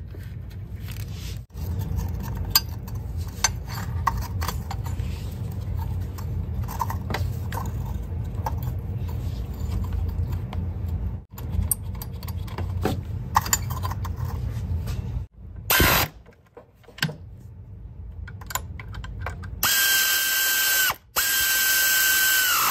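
Hand and power tools fastening parts back onto an engine: ratchet clicks and mechanical handling, then near the end two steady high whines from a power tool, the second dropping in pitch as it winds down.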